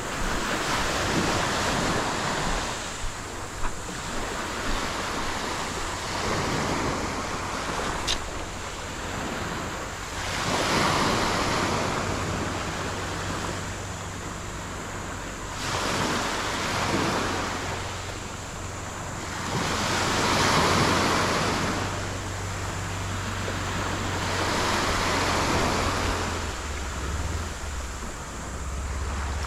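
Sea water washing in slow swells every four or five seconds, over a low steady hum, with a single sharp click about eight seconds in.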